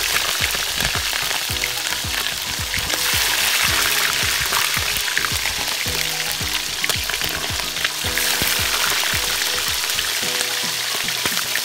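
Whole tulingan (bullet tuna) frying in hot oil in a wok, a steady sizzle throughout, with faint music underneath.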